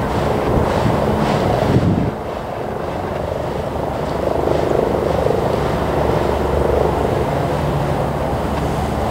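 Freight train of auto-rack cars rolling past, a steady rumble of steel wheels on rails. Wind gusts buffet the microphone during the first two seconds.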